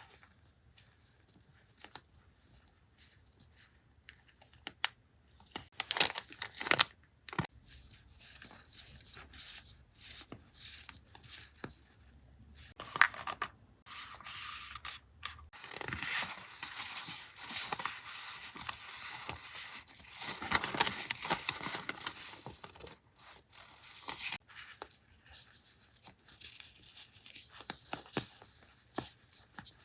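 Close-up paper crafting sounds: scattered taps and rustles of paper. About halfway through comes a longer stretch of paper tearing and rustling.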